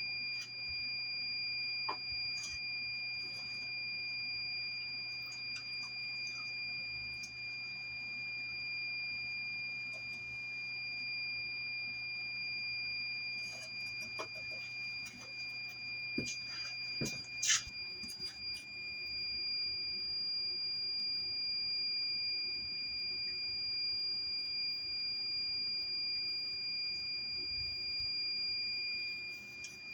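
A fire alarm sounding one steady, unbroken high-pitched tone. About halfway through come a cluster of clicks and scrapes, from iron filings being cleaned out of a sharpening machine.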